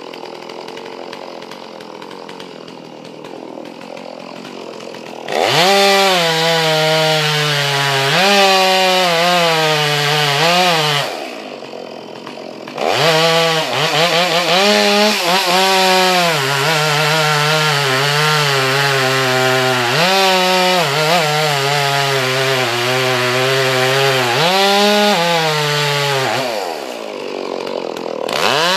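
Chainsaw idling, then opened up to full throttle about five seconds in and cutting wood, its pitch dipping and wavering as it bogs under load. It drops back to idle briefly near the middle, goes back into the cut, and eases off again shortly before the end before revving once more.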